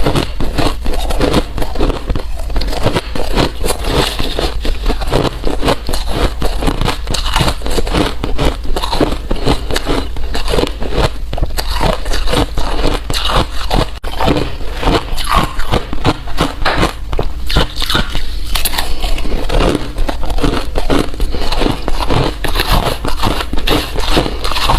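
Ice being bitten and chewed close to the microphone: a dense, continuous run of sharp crunches and crackles, several a second.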